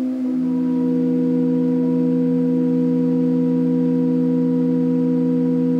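Wooden pipe-organ pipes sounding on steady wind: one held note, joined about half a second in by a second, lower note, and both sustain evenly. The pipes are not yet tuned.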